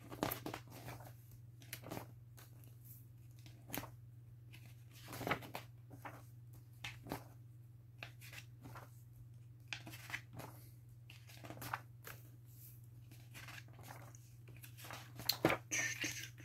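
Pages of a huge book being turned by hand: irregular paper rustles and flicks, one after another, over a steady low hum.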